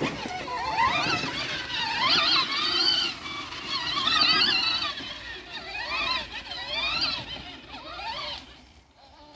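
A young child's high-pitched wordless squealing and vocalizing in wavering, rising-and-falling bursts, fading out near the end.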